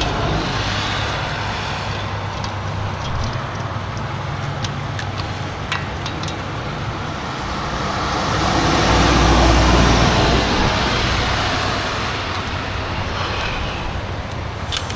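Highway traffic passing on the interstate. One loud vehicle with a deep rumble swells past about halfway through, and there are a few light clicks.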